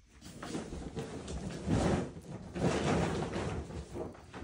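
Kitten eating wet cat food off a plate: irregular wet chewing and smacking, loudest about two and three seconds in.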